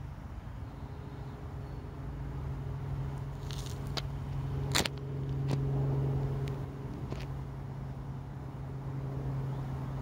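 Steady low hum of a distant motor, swelling a little partway through, with a few sharp clicks scattered over it; the loudest click comes about five seconds in.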